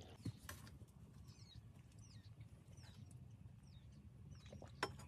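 Near silence with faint bird chirps, short falling notes repeated about every half second, over a low hum. A soft click sounds just after the start and a sharper click near the end.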